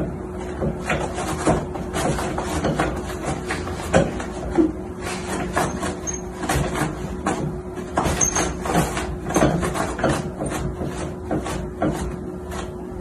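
Toilet paper roll spinning and rattling on its wall holder as a cat paws at it over and over: quick irregular clicks and paper rustle, over a steady hum.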